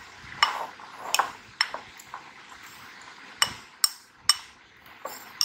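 Metal spoon stirring dry gram flour and plain flour in a glass bowl, knocking against the glass: several sharp clinks at irregular intervals, each with a short ring, with soft scraping between.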